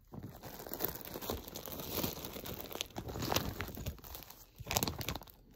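Plastic packaging crinkling as it is handled, a dense run of crackles with a brief pause shortly before the end.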